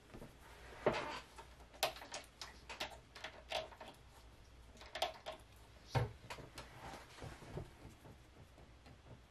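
A series of light clicks and knocks from small objects being handled, irregular and loudest about one, two, five and six seconds in.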